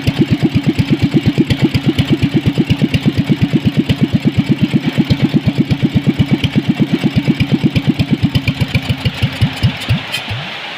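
Small diesel engine converted to petrol with a carburettor and CDI ignition, idling with an even thumping beat about seven times a second. Near the end the beats slow and the engine stops, leaving a steady hiss.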